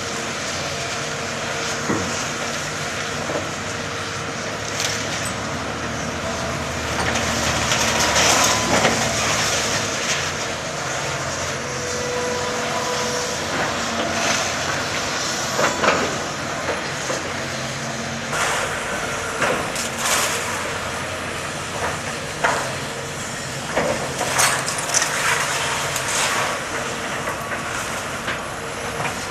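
Demolition excavator's engine and hydraulics running steadily while its metal jaws tear into the building, with scattered crashes and clanks of breaking debris and a brief squeal near the middle.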